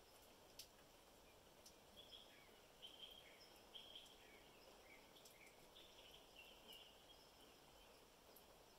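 Faint light rain: a soft, steady hiss with a few sharp drip ticks. Small birds give short, scattered chirps through the middle.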